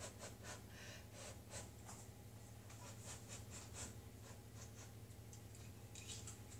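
Faint sounds of someone eating a hot mouthful: soft irregular clicks and breaths over a low steady hum.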